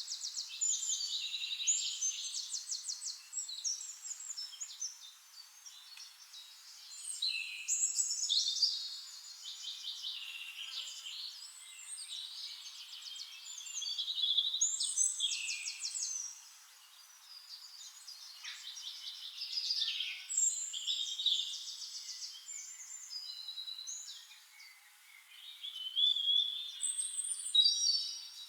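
Several small songbirds singing and chirping together, overlapping high trills, rapid note series and short whistled phrases, swelling and falling off in bouts every few seconds.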